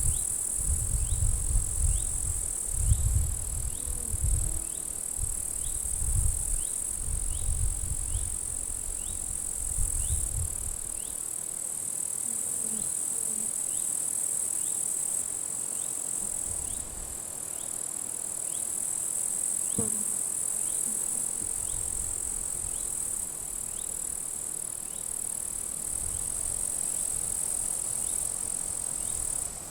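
Grasshoppers stridulating in dry grass: a continuous high, hissing buzz that swells and drops as individual insects start and stop, with a faint, regular chirp about once a second. Wind buffets the microphone in gusts for the first third, then eases.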